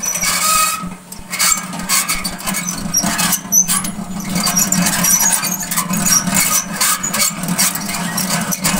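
Hand-cranked honey extractor spinning two honeycomb frames in its metal drum: a steady hum from the turning gears and basket, with a clicking rattle and short high squeaks throughout.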